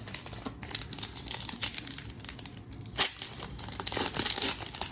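Trading-card packaging being torn open and crinkled by hand: continuous crackly rustling with one sharp rip about three seconds in.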